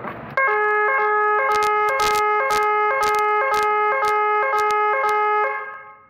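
SAT 5T/230 electronic alarm siren, powered from 230 V mains, sounding its first tone: a loud, steady high multi-note sound broken by a regular beat about twice a second. It starts about half a second in and cuts off shortly before the end.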